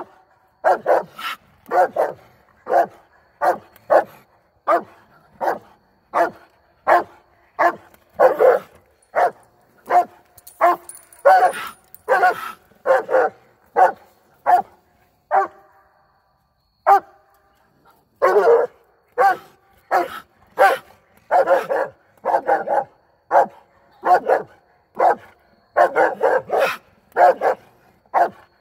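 Treeing Walker coonhound barking treed, a steady run of short barks about one to two a second, at a raccoon holed up under a UTV's front fender. The barking breaks off for a couple of seconds about halfway through, then resumes.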